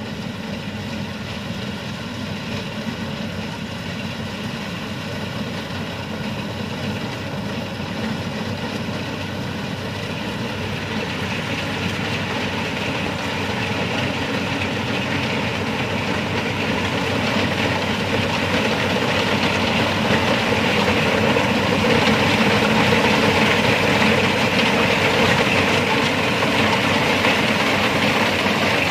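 Rice combine harvester running as it cuts standing rice, its engine and threshing machinery making a steady mechanical din that grows louder as the machine draws closer.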